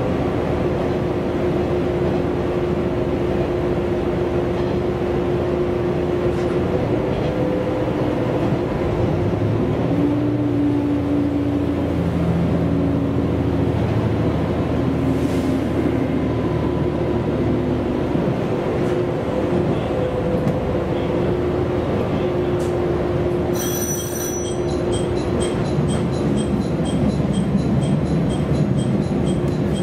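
Diesel railcar running along the line, heard from inside the cabin: a steady engine hum mixed with wheel-on-rail noise, the engine note shifting in pitch partway through. About six seconds before the end a bell-like ring repeating about twice a second joins in.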